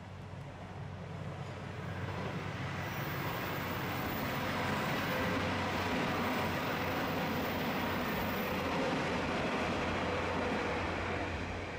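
Diesel railcar train running past, growing louder over the first few seconds, loudest through the middle, then fading toward the end.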